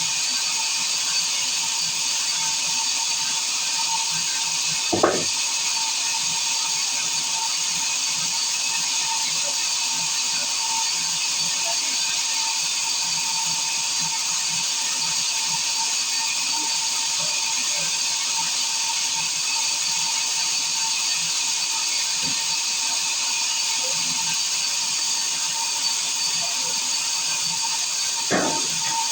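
Circular sawmill running with a steady high whine and hiss. Two brief thumps come about five seconds in and again near the end.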